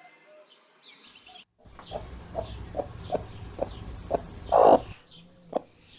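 Hen clucking: a run of short clucks, about two or three a second, starting a little under two seconds in, then one louder, longer squawk and a final cluck.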